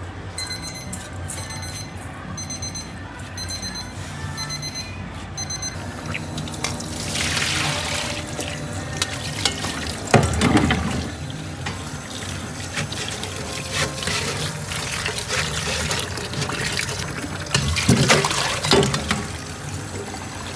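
Water running from a kitchen tap, with two louder clatters partway through and near the end, over steady background music. A short run of high repeated beeps comes in the first few seconds.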